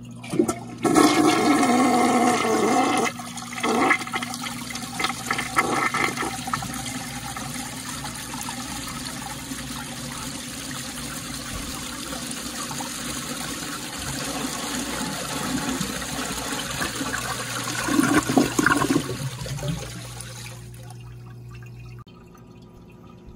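1986 American Standard Cadet toilet flushing: a loud rush of water about a second in, then steady swirling water. A louder gurgle comes shortly before the flow dies down to a fainter water sound near the end.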